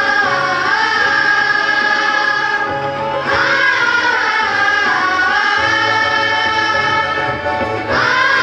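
Indian-style music with long held melodic notes; a new phrase starts about three seconds in and again near the end.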